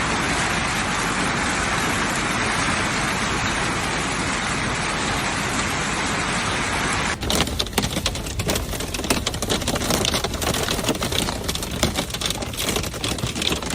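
Hailstorm: hail coming down as a steady, dense roar, which changes abruptly about seven seconds in to a rapid, irregular clatter of individual hailstones striking a hard surface.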